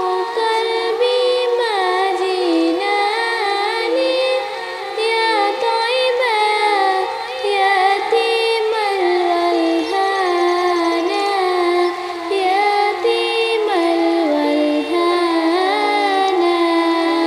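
A woman singing a naat, an Islamic devotional song, in a sliding, ornamented melody.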